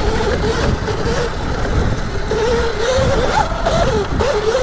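Electric Sur Ron dirt bike's motor whining, its pitch wavering up and down with the throttle, over a steady low rumble.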